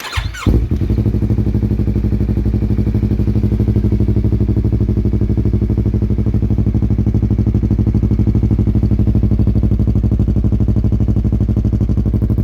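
Yamaha R3 parallel-twin engine cold-started through a Yoshimura R77 slip-on exhaust with its silencer removed: a brief crank, the engine catches with a quick rev about half a second in, then settles into a steady idle with a low, pulsing exhaust note.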